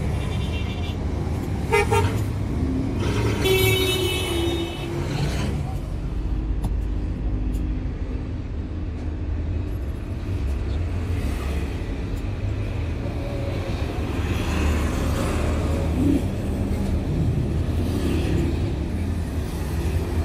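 Steady low road-traffic noise with vehicle engines running, and vehicle horns tooting a couple of times in the first five seconds.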